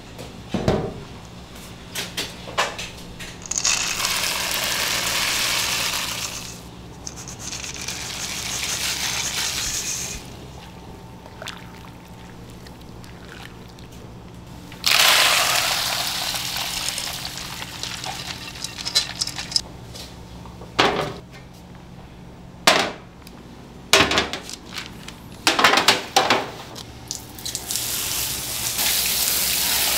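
Water running and pouring in several spells of a few seconds each, with sharp knocks and clatters of metal bowls and pots between them, over a steady low hum of kitchen machinery. Near the end water sprays from a hose onto rice in a colander.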